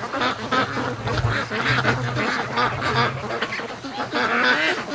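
A flock of domestic ducks quacking, many short calls overlapping one another.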